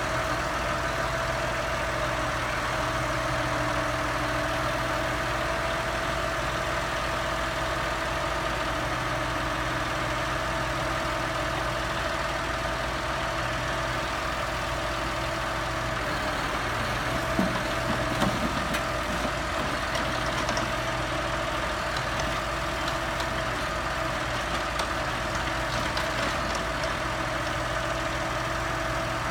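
Tractor engine running steadily while working a timber crane that loads slab wood onto a log trailer, with a steady hum over it. A couple of brief knocks come a little past halfway.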